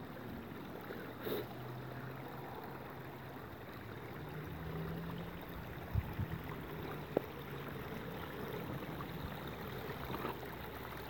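Wind buffeting a phone microphone, with a faint steady low hum in the middle and a few light clicks of footsteps on loose slate.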